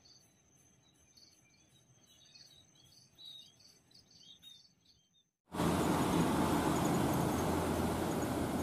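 Faint birds chirping over quiet outdoor background, then about five and a half seconds in a loud, steady rushing noise starts suddenly and carries on.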